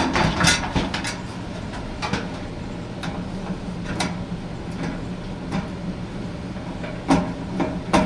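Sheet-metal furnace access panel being fitted back onto the cabinet, making scattered clicks and knocks. Under it, the steady hum of the gas furnace's blower running on after the heat call has been cut, cooling the furnace down.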